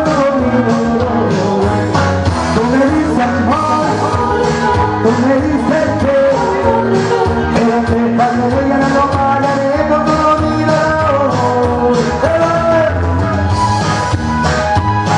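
A man sings live into a handheld microphone over amplified band music with a steady beat.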